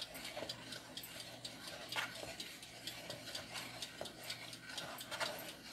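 Wooden spoon stirring a thick, milky mixture in a plastic bowl, with light, irregular clicks and taps as the spoon knocks against the bowl.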